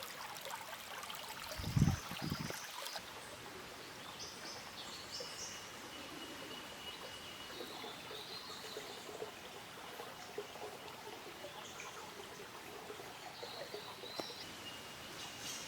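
Rainforest creek running steadily, with birds calling over it in short high-pitched notes. A low thump about two seconds in.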